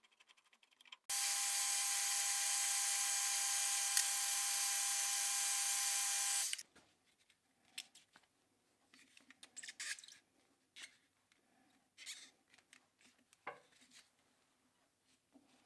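A steady, even-pitched power-tool whir runs for about five seconds, starting and stopping abruptly. Then come scattered light rubs, scrapes and clicks as a rubber strap wrench grips the keyless drill chuck.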